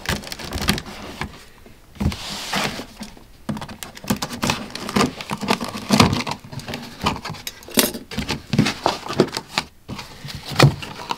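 Scissors cutting through the packing tape on a cardboard box, then the box flaps being pulled open and the packing inside handled: a run of irregular scrapes, rustles and knocks, with a longer scraping cut a couple of seconds in.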